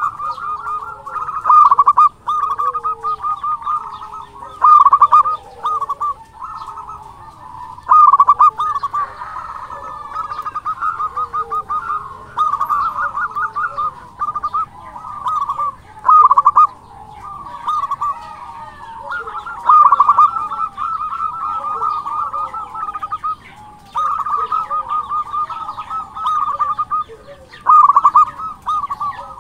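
Zebra dove (perkutut) cooing: a continuous run of quick staccato coos with a louder phrase every three to four seconds, and softer, lower wavering coos underneath.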